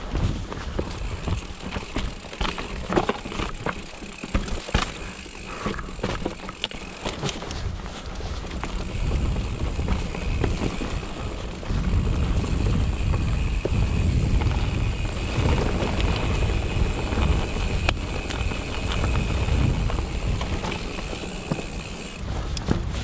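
Mountain bike descending a rocky trail: a constant low rumble of tyres over dirt and rock, with many sharp clattering knocks in the first several seconds. A steady high buzz comes in about nine seconds in and runs almost to the end.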